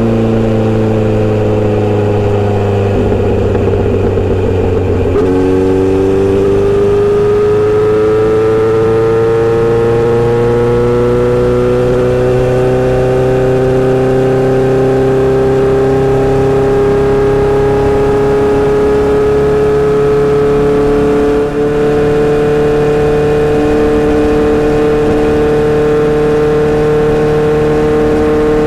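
Inline-four motorcycle engine and exhaust under way. Its pitch falls over the first few seconds as the bike slows, then, from about five seconds in, climbs slowly and steadily as the bike gathers speed.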